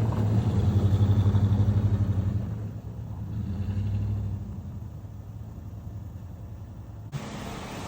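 An engine running with a steady low, rapid pulse, loudest for the first two seconds or so and then fading down. The sound changes abruptly about seven seconds in.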